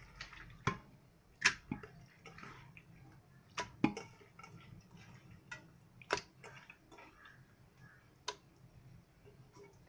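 Raw beef pieces dropping from a bowl into an empty metal pressure cooker: a handful of sharp, irregular knocks and soft thuds against the pot.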